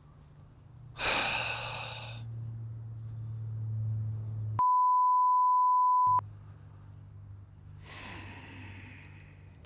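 A man's heavy sigh about a second in and another near the end, in exasperation at a carp that has just come off the hook. Halfway through, a steady censor beep about a second and a half long blots out a swear word.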